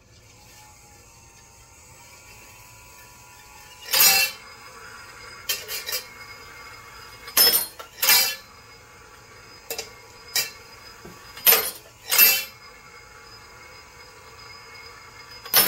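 EP 2.0 brass annealer running, with a faint steady motor hum from its turning wheel, while a .45-70 brass case clinks against the aluminium wheel and steel plates. The sharp metallic clinks come at irregular intervals, about ten in all, each ringing briefly.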